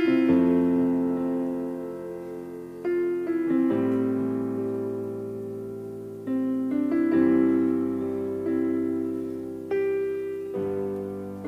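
Slow, gentle piano music: sustained chords struck every second or few and left to ring and die away.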